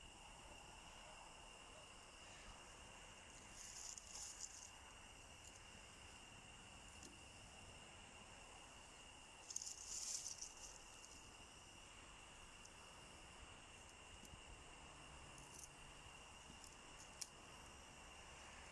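Faint, steady high-pitched chirring of crickets, with a few brief crackles about 4 and 10 seconds in.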